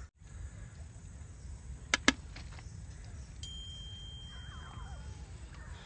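Subscribe-button sound effect: two quick mouse clicks about two seconds in, then a bell-like ding about a second and a half later that rings out and fades over almost two seconds. Underneath runs a steady low rumble of outdoor background noise.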